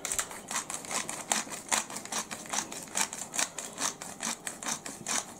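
Pepper mill grinding black pepper, a fast run of dry clicks, about five a second.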